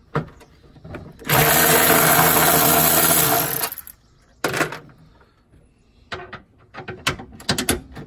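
Cordless electric ratchet running steadily for about two seconds, backing out a hybrid-battery mounting bolt. A single click follows, then a quick string of light clicks and taps from the socket and bolt.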